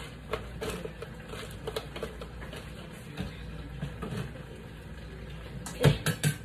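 Kitchen handling sounds over a steady low hum: light clicks and knocks, then a few sharp clinks of a spoon against a metal pan near the end.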